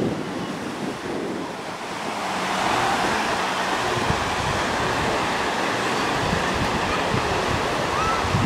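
Lake Michigan surf breaking on a sand beach: a steady rushing wash that grows louder about two seconds in, with wind buffeting the microphone.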